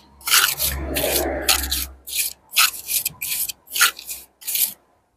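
A thin steel pointing trowel scraping lime mortar off a hawk and packing it into brick joints: a quick series of about ten short scraping strokes, roughly two a second.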